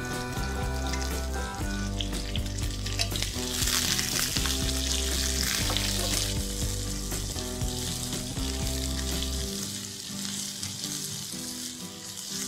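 Sliced spring onions and garlic sizzling in hot oil in a wok while being stirred with a wooden spatula; the sizzle grows louder about three seconds in. Background music plays under it.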